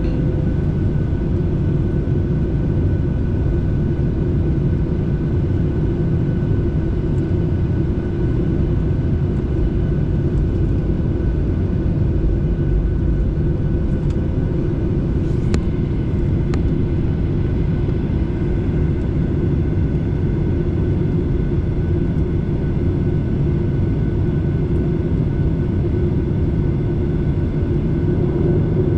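Steady engine and air noise inside an airliner's cabin in flight, an even roar with a constant hum. Two faint clicks come about halfway through.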